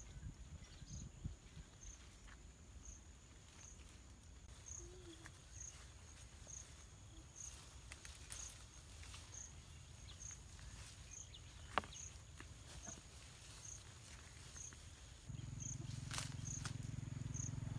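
Faint outdoor ambience of an insect chirping evenly, one short high chirp about every second, with a few light clicks and rustles. About fifteen seconds in, a louder low, steady rumble comes in.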